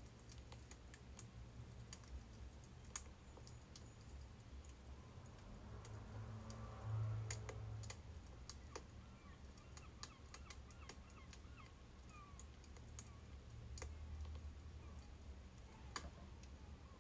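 Faint crackling of a birch-wood fire: irregular sharp pops and snaps over a low steady hum, with a brief louder low rumble about seven seconds in.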